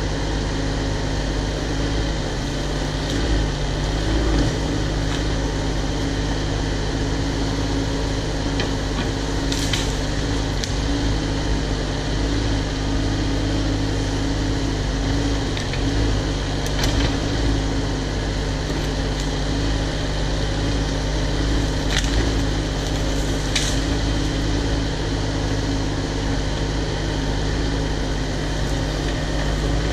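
Cat 304 mini excavator's diesel engine running steadily, with a few sharp clicks about 10, 17, 22 and 23 seconds in.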